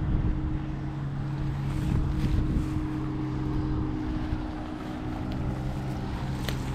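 A motorboat engine running with a steady drone, over a low wind rumble on the microphone.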